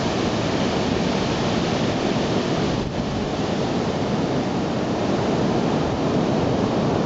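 Large ocean surf breaking and whitewater rushing onto the beach, a steady, dense wash of noise, with wind on the microphone.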